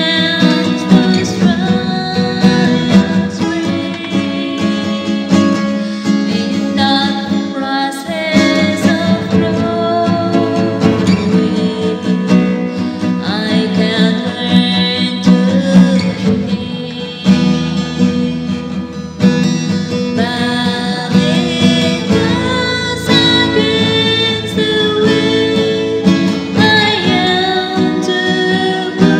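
A woman singing a slow worship song to her own acoustic guitar, playing a chord progression of A, B, E and C#m under the melody.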